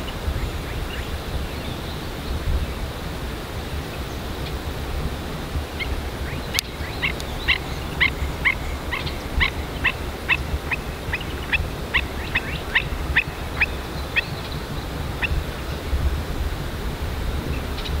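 A series of some twenty short, evenly repeated animal calls, about two a second, starting about six seconds in and stopping around fifteen seconds, over a steady low rumble of wind on the microphone.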